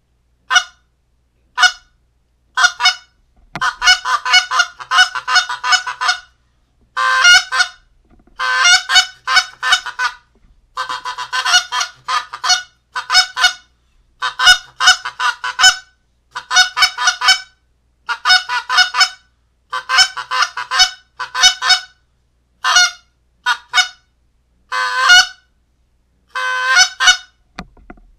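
A handheld goose call blown by a person, giving short honks and clucks in quick runs of several notes, with brief pauses between the runs.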